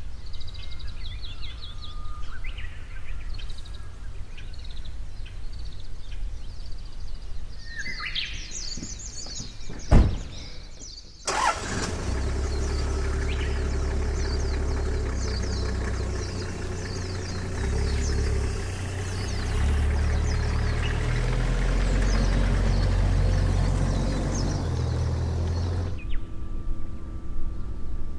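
Small birds chirping over a low outdoor rumble. About ten seconds in comes a sharp knock, then a loud, steady rumbling noise with hiss that cuts off abruptly shortly before the end.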